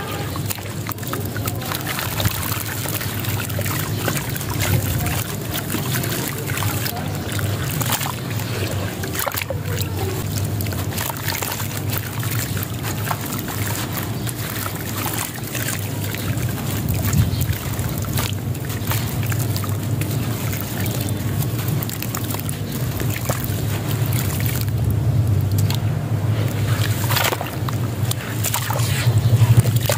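Lumps of grainy sand crumbling and crunching in the hands and falling into a basin of muddy water, with many small crackles and water sloshing. A steady low rumble runs underneath.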